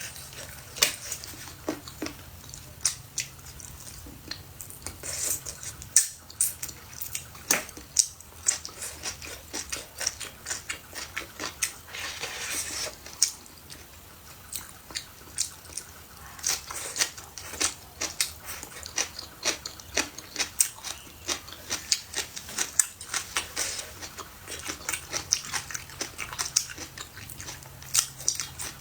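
Close-miked chewing and biting: a steady run of sharp, wet mouth clicks and crunches as food is eaten, with a longer noisy stretch about twelve seconds in.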